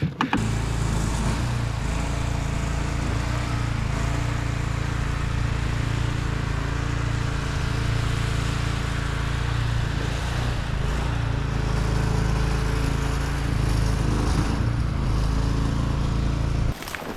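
Small engine running steadily at a constant speed, then cutting off suddenly near the end.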